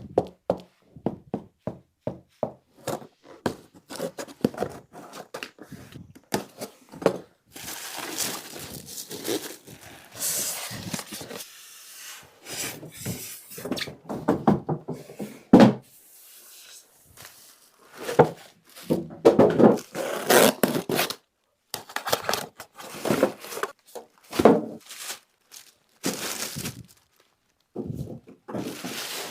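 A soundbar's cardboard box and packaging being unpacked by hand: a string of knocks and thunks with stretches of rustling.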